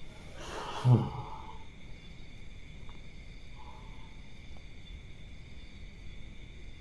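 A man lying down gives one short, low vocal exhale about a second in, falling in pitch, over a steady high drone of night insects.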